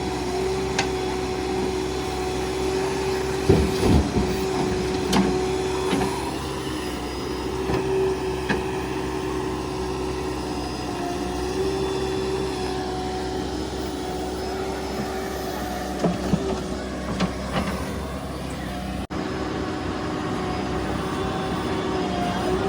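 JCB 3DX backhoe loader's diesel engine running steadily under working load, with a steady whine over it. A few sharp knocks come at about four seconds in and again around sixteen seconds in.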